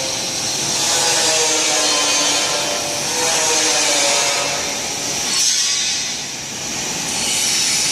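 Portable CNC plasma cutting machine running: a loud steady hiss with a faint motor whine under it that changes pitch as the carriage moves along its rails. The hiss changes about five and a half seconds in and dips briefly near six seconds.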